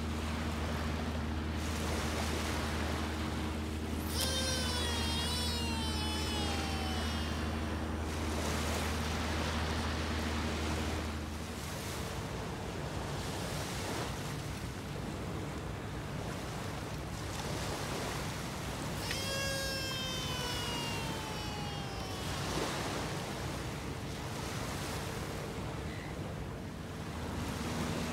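Two long casts with a Zziplex M427SU surf casting rod: each starts with a sharp swish as the rod is swung through, followed by the reel spool's whine as line pays out, falling in pitch over about three seconds as the spool slows. Surf and wind go on underneath, and a steady low hum stops about eleven seconds in.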